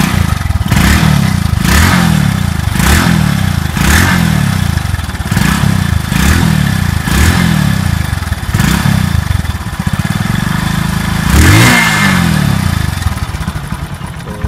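Honda Twister 110cc single-cylinder four-stroke engine running with its air filter element removed, revved in short throttle blips about once a second, with a bigger, longer rev near the end.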